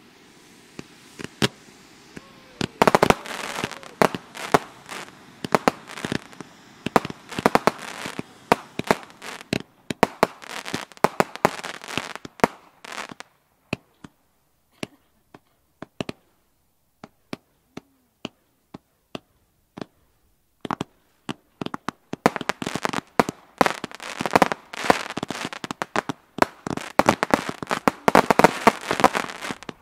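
Fireworks: a soft steady hiss of ground fountains at first, then batteries firing in rapid runs of sharp shots and crackling. About halfway through the firing thins to scattered single pops, then builds again into a dense crackle near the end.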